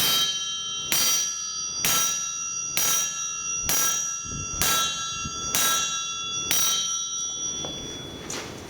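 Sledgehammer blows on steel at the anvil, about one a second, each leaving a bell-like metallic ring; the striking stops near the end. The blows are a striker splitting the steel blank of a small splitting maul.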